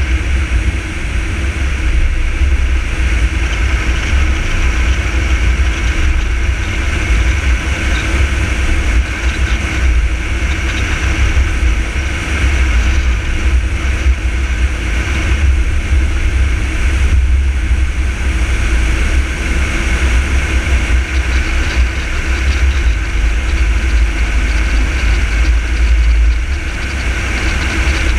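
Car driving along a road at steady speed: continuous engine and tyre noise over a heavy, fluttering low rumble.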